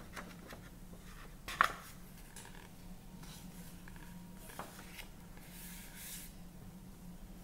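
Pages of a paperback book turned and pressed flat by hand: soft paper rustling, with a sharp page flick about a second and a half in and a longer paper slide near the end.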